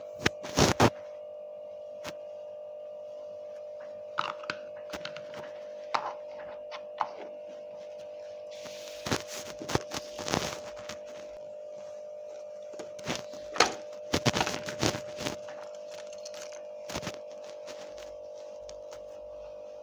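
Scattered clicks, knocks and thunks of small plastic toys being handled on a table, over a steady unchanging hum. The knocks come thickest in the middle of the stretch.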